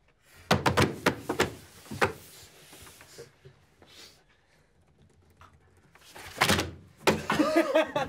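A quick run of sharp thuds and knocks starting about half a second in, then quiet, then another dense run of knocks in the last second.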